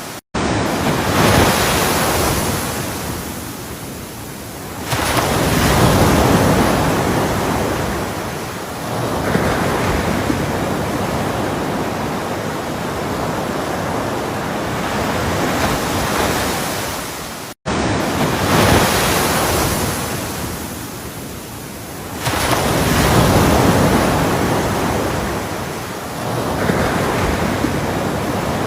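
Ocean surf, waves breaking and washing back in slow swells every four to five seconds. The sound cuts out for an instant twice, just after the start and a little past the middle.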